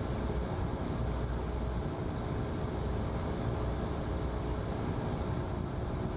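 Single-engine Cessna's piston engine and propeller droning steadily, heard inside the cabin in cruise on the downwind leg.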